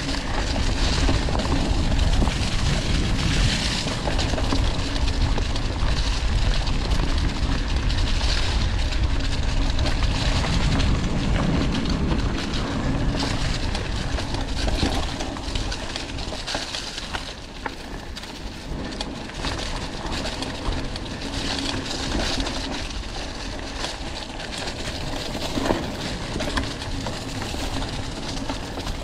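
Mountain bike riding along a dirt forest trail: steady tyre rumble and rattling of the bike, a little quieter for a while past the middle.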